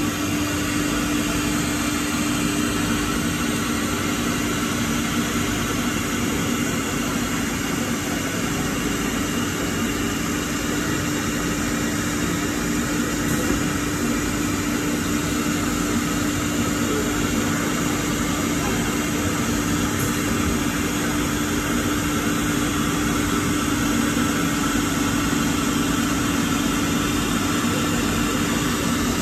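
Four-spindle CNC woodworking router and its dust extraction running: a steady machine hum with one constant mid-pitched tone and an even rush of air.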